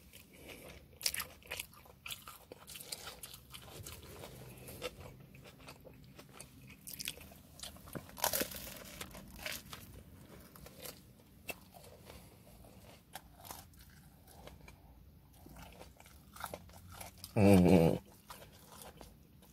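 Close-up chewing of a toasted sandwich: wet mouth clicks and crunching as it is bitten and chewed. Near the end comes a short, loud vocal sound with a wavering pitch from the eater.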